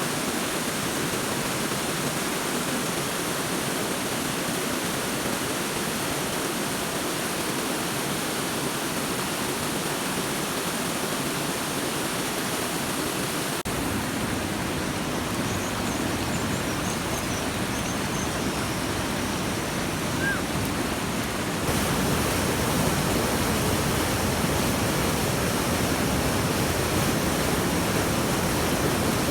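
Steady rushing water, like a stream or small waterfall, with a change about halfway through and the sound growing fuller and a little louder in the last third. A few faint high chirps come through in the middle.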